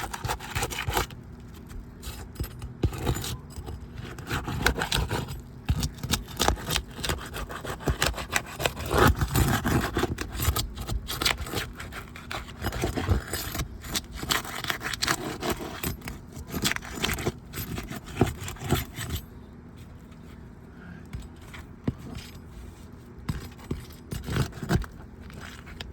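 Asphalt roof shingles being pried loose by hand: irregular scraping, crackling and tearing as the sealant strip is broken and the brittle shingle rips instead of releasing cleanly, with light metal clinks from the tool. The work goes quieter about nineteen seconds in, leaving only occasional clicks.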